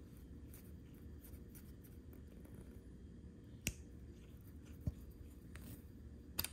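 Small clicks and taps of a fountain pen's metal cap and barrel being handled, with sharper clicks about three and a half, five and six and a half seconds in.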